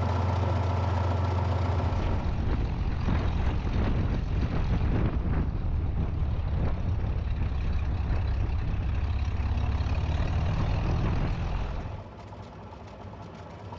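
Single-engine Cessna 182 Skylane's piston engine and propeller running, heard from inside the cabin. A steady drone turns rougher and noisier about two seconds in, then drops markedly in level near the end.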